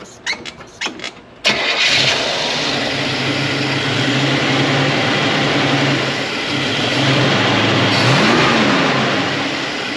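Carbureted car engine cranked by the starter for about a second and a half, then firing and running, with a brief rise and fall in revs near the end. It runs a little rough, which the owner puts down to the carburetor's idle circuits.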